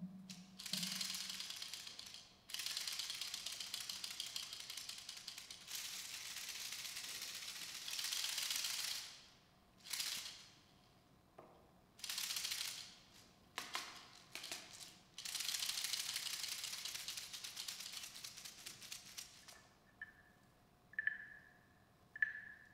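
Dried seed pod rattle shaken in long rattling strokes of several seconds each, the seeds inside clicking rapidly, with a few short shakes in between. Near the end come a few short, high pitched plinks.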